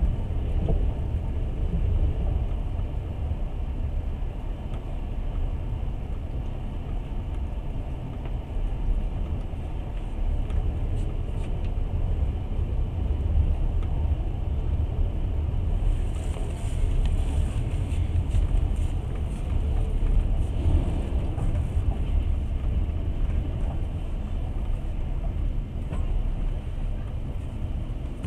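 Steady rumble of a moving passenger train heard from inside the carriage: wheels running on the rails.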